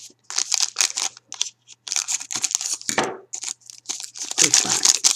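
Foil card packs and box packaging crinkling and tearing as a box of hockey card packs is opened with scissors: a run of irregular rustling bursts.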